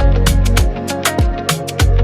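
Background music with a steady beat: an upbeat Afrobeat-style track with sharp percussion hits over bass and pitched melody.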